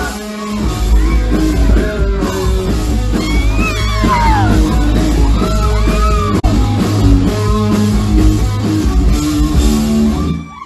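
Live rock band playing loud, with electric guitar, heavy bass and a singer shouting and singing over it.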